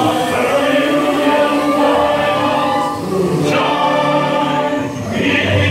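The ride's show soundtrack in the mine scene: the dwarfs singing together in a chorus over music, with held notes that change about every second.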